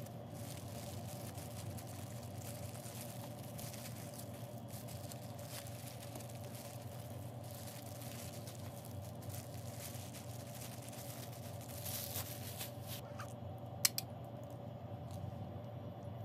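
Plastic-gloved hands rustling and crinkling on cling film while laying fillings onto a tortilla wrap, over a steady low hum. Near the end comes a single sharp click.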